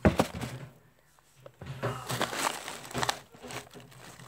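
Wooden spoon stirring pieces of meat in a little water in a stainless steel pot: wet, crinkly rustling with sharp knocks. The loudest knock comes right at the start, and a second spell of stirring follows about two seconds in.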